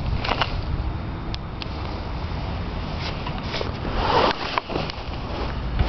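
Wind rushing over the microphone and low road rumble from an electric bicycle riding along asphalt, with a few light clicks and a brief rustle about four seconds in.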